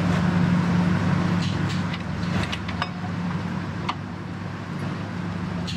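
A steady low mechanical hum with a faint noise haze, and a few light, sharp clicks of metal parts being handled.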